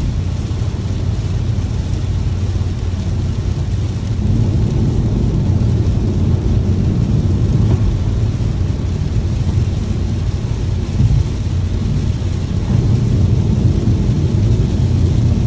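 A vehicle driving in heavy rain: a steady low rumble of road and tyre noise with rain hiss over it, growing a little louder about four seconds in and again near the end.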